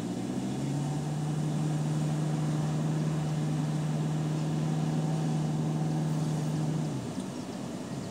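Steady mechanical hum from a car, heard from inside the cabin. It steps up slightly in pitch about half a second in and drops away about seven seconds in.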